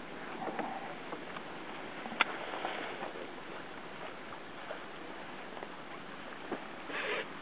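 Steady rushing noise of wind and water on the water around a sailing dinghy, with scattered light knocks and one sharp click about two seconds in.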